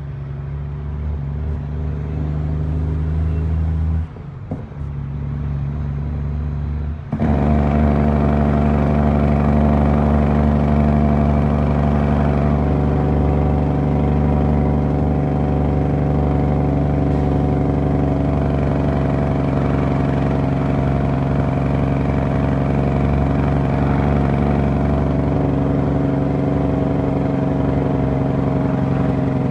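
Western Star truck's diesel engine running steadily under way, heard from inside the cab. The drone dips briefly about four seconds in, then comes back louder and steady after about seven seconds.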